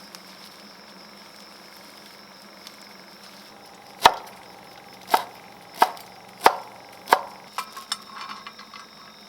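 Knife chopping on a cutting board: five sharp strokes about two-thirds of a second apart, starting about four seconds in, followed by a few lighter taps.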